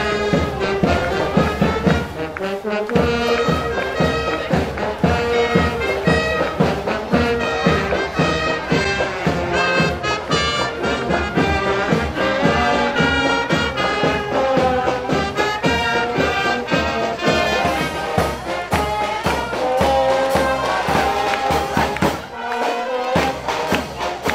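Brass band music with a steady beat.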